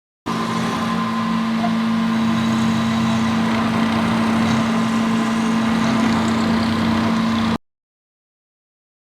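CNC milling machine running with a steady, even hum, then cutting off suddenly about seven and a half seconds in.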